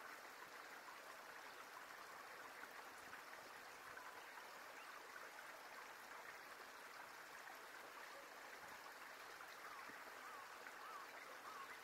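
Near silence: faint, steady outdoor ambience with an even hiss, and a few faint short chirps near the end.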